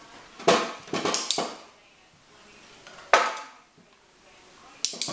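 A dog's paws stepping into and onto a metal baking tray, the tray clanking against the floor: a quick run of sharp metallic clanks in the first second and a half, a single clank about three seconds in, and two more near the end.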